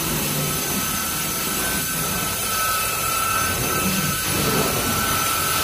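Carpet-cleaning extraction wand sucking water and dirt out of carpet: a steady rushing hiss with a thin high whistle, swelling slightly with each stroke about every two seconds.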